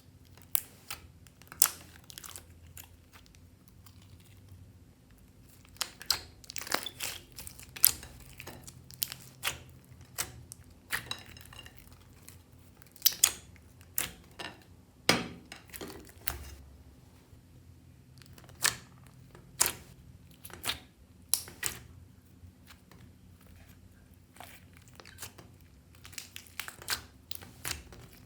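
Hands kneading and stretching slime with makeup and clay mixed in, giving irregular sticky pops and crackles, some of them sharp and loud, over a faint steady hum.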